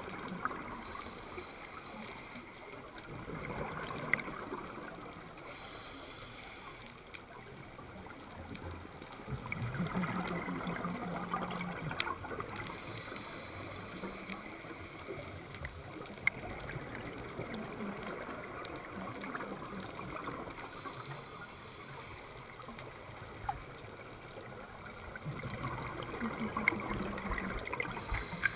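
Underwater ambience through a camera housing: a scuba diver's regulator exhaust bubbles gurgling in bursts that swell every several seconds. Scattered sharp clicks run through it.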